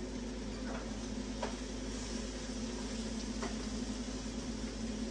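Steady hum of a kitchen range-hood fan, with three faint taps.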